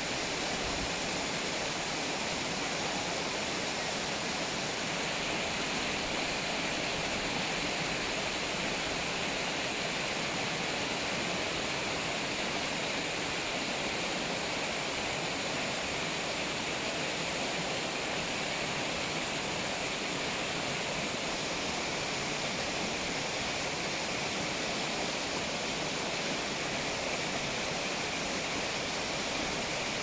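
Waterfall pouring down a rocky cliff into the pool below: a steady, unbroken rush of falling water.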